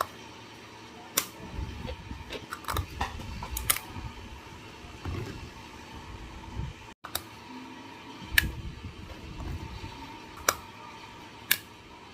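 Bottles and drink-making utensils being handled, giving a string of sharp clicks and knocks every second or two, with low rumbling handling noise in between over a faint steady hum.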